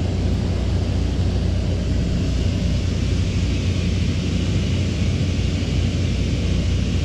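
Steady low mechanical rumble with a hiss above it, unchanging throughout with no single event standing out.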